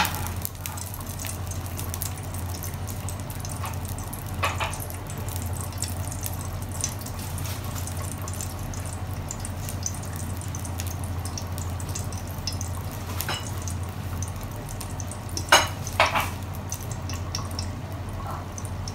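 Melted desi ghee faintly sizzling and crackling in a nonstick frying pan, over a steady low hum. A few sharp clicks stand out, two of them close together near the end.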